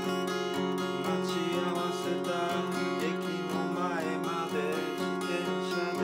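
Steel-string acoustic guitar strummed in a steady rhythm, chords ringing between the strokes.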